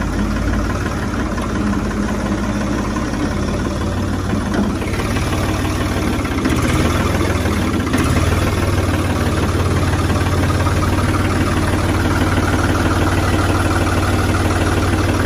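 Ford 3600 tractor's three-cylinder diesel engine running while the tractor is driven, growing a little louder about six seconds in.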